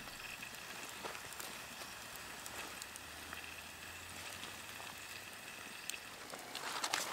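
Campfire embers under a wire grill, a faint steady hiss with a few sparse crackles.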